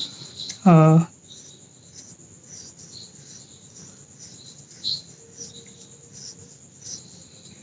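Faint insect chirping, cricket-like: a thin steady high tone with scattered short chirps. A single short spoken word is heard about a second in.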